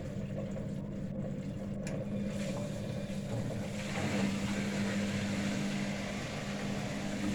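Bosch Logixx 6 washing machine's drain pump running during the service test, a steady hum as it pumps out the water.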